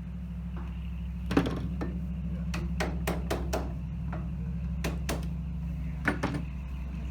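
Hammer tapping on sheet-metal roofing as it is tacked down along the edge of a wooden hive lid, about a dozen sharp strikes in short quick runs, the first the loudest. A steady low hum sits underneath.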